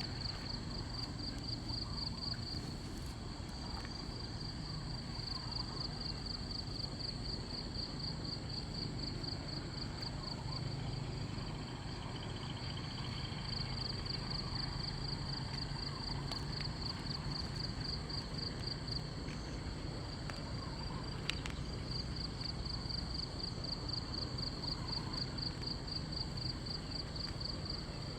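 An insect calling in a steady, high, rapidly pulsing trill that breaks off briefly a few times, over a low background rumble.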